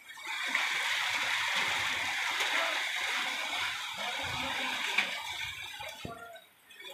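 Heavy rain pouring down on grass and ground, a steady hiss that drops away near the end.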